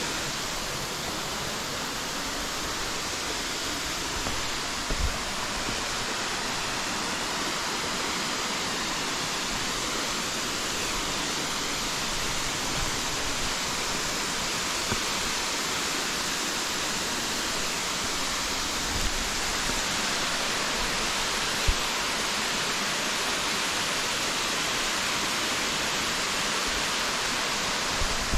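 Steady rushing of a large waterfall, Erskine Falls, heard close by, with a few faint low thumps.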